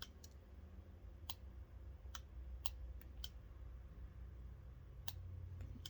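Scattered sharp clicks, about eight over six seconds and irregularly spaced, from small tools and wire being handled as a cable's white conductor is stripped. A low steady hum runs underneath.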